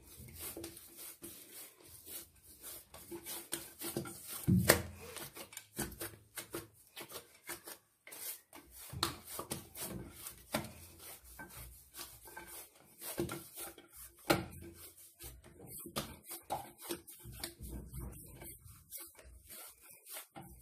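Hands kneading soft meloui dough in a glazed terracotta dish: irregular rubbing and scraping of palms and dough against the clay, with dull knocks as the dough is pushed and turned, the loudest about five seconds in and again near fourteen seconds.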